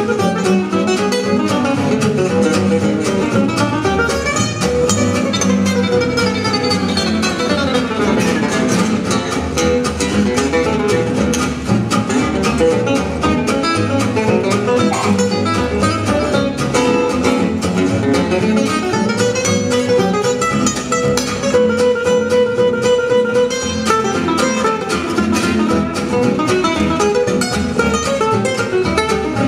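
Live gypsy jazz played on acoustic guitars and upright double bass: a lead guitar plays fast single-note runs over strummed rhythm guitar and walking bass, with no violin. A quick descending run comes about five seconds in.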